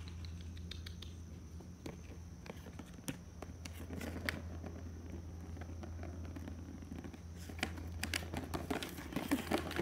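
Maine Coon kitten at play: scattered light taps, scrabbles and rustles, thickening toward the end, over a steady low hum.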